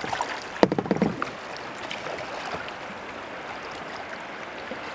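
Kayaks being paddled on a river: water splashing and rushing along the hulls as a steady hiss. A short flurry of sharp knocks and splashes comes about a second in.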